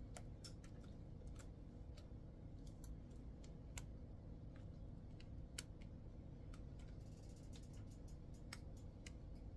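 Scattered light clicks and taps of a rubber spatula against a glass bowl and glass baking dish as a thick, creamy filling is scraped out and spread, over a faint steady low hum.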